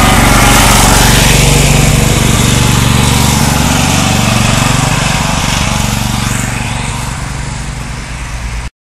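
Toro zero-turn riding mower's engine running steadily, growing fainter over the last few seconds as the mower moves away, then cutting off suddenly near the end.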